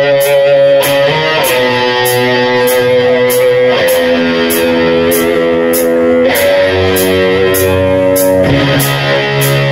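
Live rock band playing loud: electric guitar chords held and changing every two seconds or so over bass guitar, with the drummer's cymbal marking a steady beat about twice a second.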